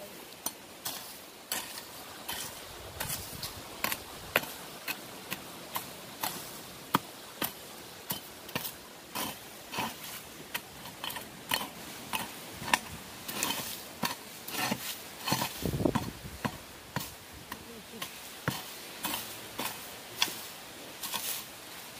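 A hoe blade chopping into dry soil again and again, irregular strikes of about one or two a second, as the ground is dug open to lift sweet potatoes.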